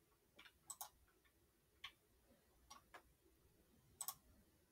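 Computer mouse button clicks, about eight short sharp clicks spread out, some in quick pairs, as dialog buttons are clicked through.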